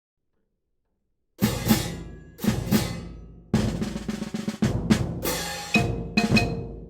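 Percussion performance starting after a moment of silence: struck drums with ringing cymbal-like crashes, in irregular groups of hits. Pitched ringing notes join in near the end.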